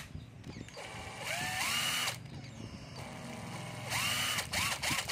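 Cordless drill/driver with its chuck removed, run on the trigger: the motor spins up with a rising whine, runs steadily and stops. About four seconds in it runs again, with a few quick on-off blips of the trigger.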